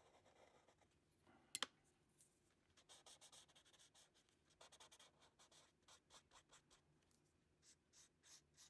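Faint, quick rubbing strokes of a paper blending stump on drawing paper, smudging pencil shading, with one sharp click about one and a half seconds in.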